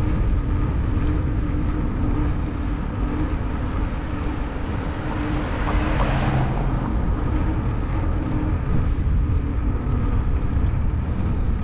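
Wind rumbling on the microphone of a camera mounted on a moving road bike, with a car going past about halfway through, its noise swelling and then fading.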